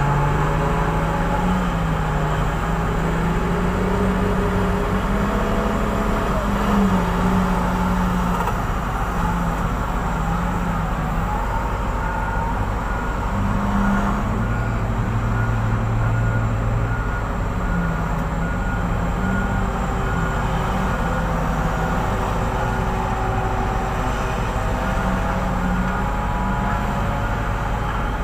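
Large diesel engines of a Hitachi EX2600 mining excavator and haul trucks running steadily, their pitch rising and falling as the machines work. A faint steady beeping joins about halfway through.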